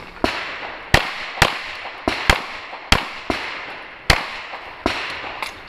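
Semi-automatic pistol firing a string of about ten shots, sharp reports spaced unevenly, some louder than others.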